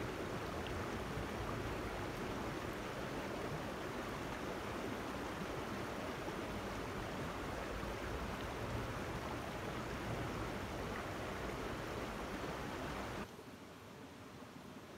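Steady rush of flowing stream water. About thirteen seconds in it drops suddenly to a much fainter hiss.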